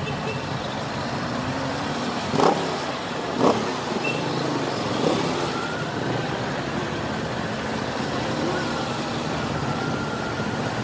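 Motorcycle engine running under way, with a steady rush of road noise. Two quick, loud throttle blips come about two and a half and three and a half seconds in, and a smaller one near five seconds. After that the engine note climbs slowly as the bike accelerates.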